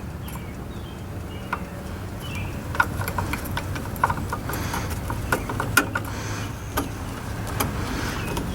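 Scattered light clicks and knocks, irregular and growing more frequent after about three seconds, over a steady low hum.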